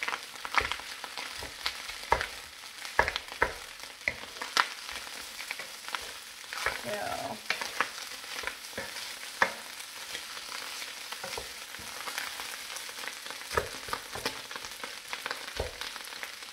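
Rice frying in browned butter in an electric wok: a steady sizzle, broken by frequent irregular sharp clicks and taps of a wooden spoon stirring and breaking up clumps of rice.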